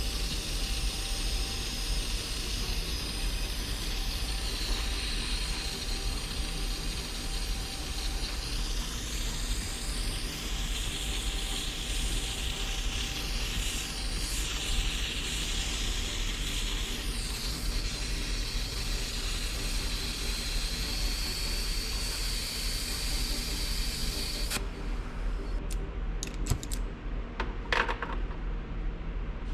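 Blowtorch flame hissing steadily as it heats a diesel heater burner to burn off carbon deposits. Near the end the high part of the hiss drops away and a few sharp clicks sound.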